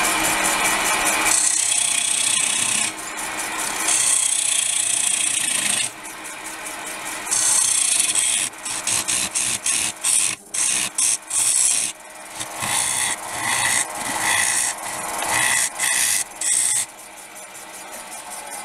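Turning tool cutting into a spinning bowl of hard, still-wet ash on a wood lathe: a rough, hissing cutting noise. It runs steadily for about the first six seconds, then breaks into many short cuts as the tool meets and leaves the wood. The hard wood cuts with difficulty.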